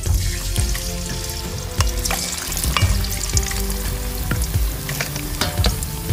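Pieces of peacock bass deep-frying in hot oil in a black wok: a steady sizzle crackling with many sharp pops and spits.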